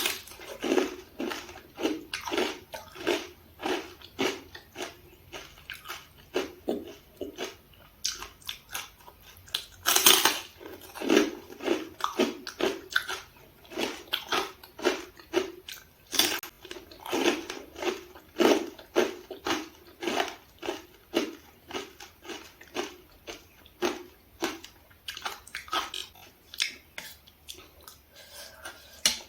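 Close-miked chewing, about two wet mouth sounds a second, with a louder bite about ten seconds in.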